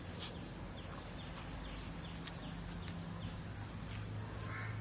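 A puppy digging into a hole in the lawn, a few sharp scrapes of dirt over a low steady hum, with a run of short, high, falling bird-like chirps in the first couple of seconds.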